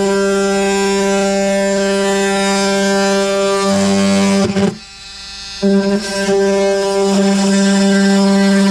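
Handheld power tool cutting the opening for an outlet box in an RV wall panel: a steady high motor whine that changes a little before halfway as it bites into the panel, stops for about a second around the middle, then starts again and runs steadily.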